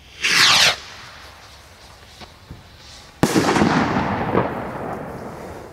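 Consumer firework rocket (Luna Rocket) launching with a short whoosh that falls in pitch. About three seconds later it bursts with a sharp bang, followed by crackling sparks that fade over about two seconds.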